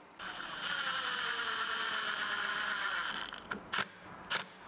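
Cordless drill spinning a countersink bit into the edge of birch plywood, a steady whine lasting about three seconds whose pitch sinks slowly as the bit bites. A few sharp clicks or knocks follow near the end.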